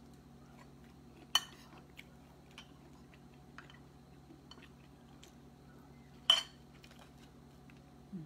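Cutlery clinking against dishes during a meal: two sharp clinks, about a second and a half in and again about six seconds in, with small faint ticks in between.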